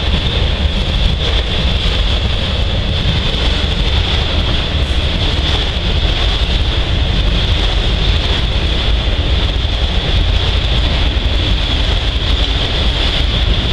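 Norfolk Southern freight train's autorack cars rolling past: a loud, steady rumble of steel wheels on the rails, with a steady high-pitched ring over it.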